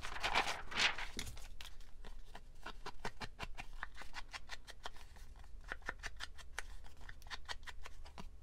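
Paper rustling as a sheet of cardstock is handled, then a round-tipped hand tool dabbing and rubbing on a small piece of cardstock on a cutting mat, making quick, uneven taps several times a second.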